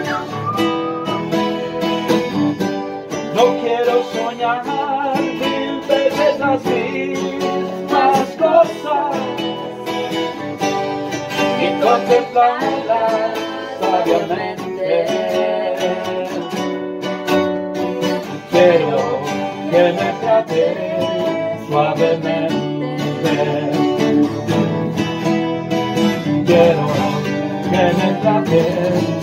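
Classical nylon-string guitar played live, plucking a continuous song accompaniment without a break.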